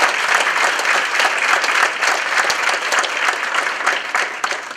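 Audience applauding: many hands clapping together, dying down near the end.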